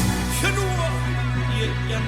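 Background music: a hip-hop style track with a held deep bass and a sliding synth melody.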